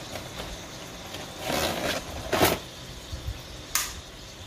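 Dry lasagna noodles snapped by hand: a brief rustle, then a sharp crack about two and a half seconds in and a smaller snap near the end.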